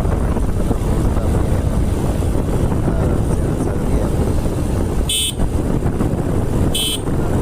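Motorcycle riding on a road, with a steady rumble of engine and wind on the microphone, and two short, high horn beeps, about five and almost seven seconds in.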